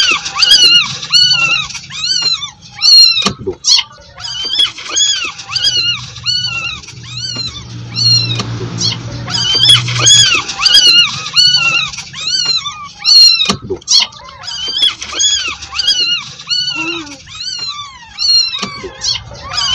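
Kitten mewing over and over: short, high calls that rise and fall, a few each second, with a lull around the middle.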